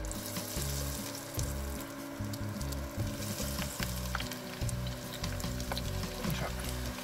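Battered pond smelt (wakasagi) deep-frying in a small pot of hot oil: a steady sizzle with many small crackles and pops as pieces go into the oil.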